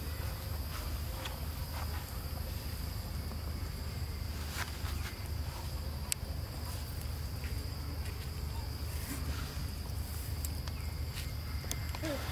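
Insects trilling steadily in one high, unbroken tone over a constant low rumble, with a few faint scattered clicks.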